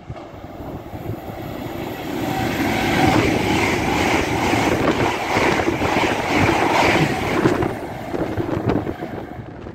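LNER Azuma high-speed electric train passing through the station at speed. The rush of wheels on rail builds over the first few seconds, is loudest from about three to seven seconds as the carriages go by, then fades as the train moves away.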